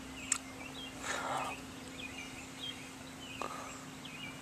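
Quiet creek-side outdoor ambience with faint high chirps, a brief soft swish of water about a second in, and a couple of light clicks.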